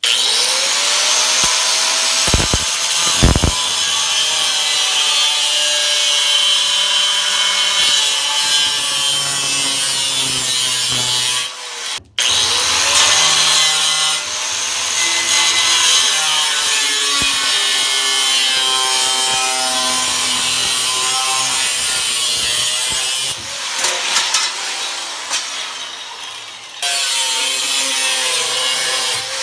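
Power tool cutting through sheet steel, its motor pitch sagging and recovering under load. The cutting stops briefly about twelve seconds in and goes quieter for a few seconds near the end before picking up again.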